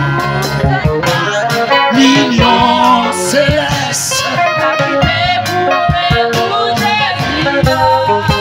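Women's church choir singing a gospel song together, with lead voices on microphones, over amplified instrumental accompaniment.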